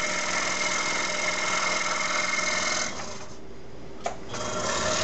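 Scroll saw running at about five-eighths speed, its fine blade cutting a straight line through 3/8-inch plywood with a steady rapid buzz. About three seconds in the cutting noise drops to a quieter run, a single sharp click follows a second later, and the louder saw noise returns near the end.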